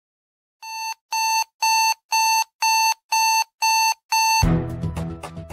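Electronic alarm-clock-style beeping: eight short, evenly spaced beeps of one steady pitch, about two a second. The beeping gives way to music about four and a half seconds in.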